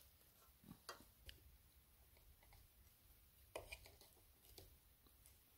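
Near silence with a few faint clicks and taps of a knife and tongs against a metal frying pan as a seared steak is cut.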